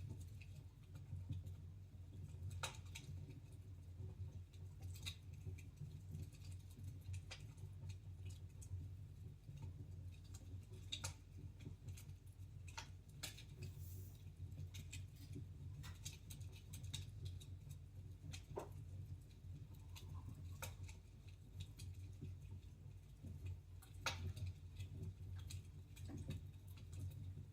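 Wood fire crackling in a fireplace: faint, irregular sharp pops and snaps at uneven intervals over a low steady rumble.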